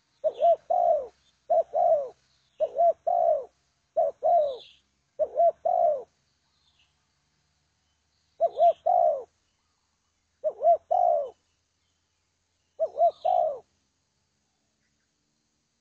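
Spotted dove (tekukur) cooing: eight short phrases of a few low notes, the last note of each falling, repeated about once a second at first, then after a pause spaced about two seconds apart, stopping well before the end.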